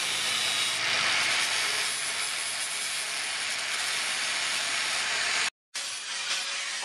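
Electric angle grinder with an abrasive disc grinding a steel knife blade: a steady, loud hissing grind over the motor's whine. It cuts out for a moment about five and a half seconds in, then resumes.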